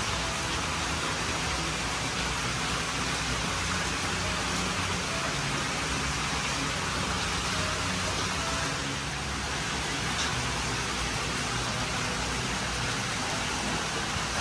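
Steady splashing of water pouring into a koi holding vat, an even rushing noise that holds one level throughout.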